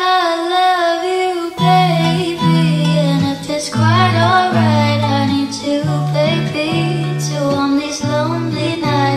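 Background pop song with a woman singing the melody; a bass line comes in about a second and a half in.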